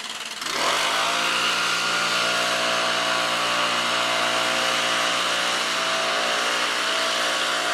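Leaf blower throttled up: its engine note rises over the first second, then runs steadily at full speed.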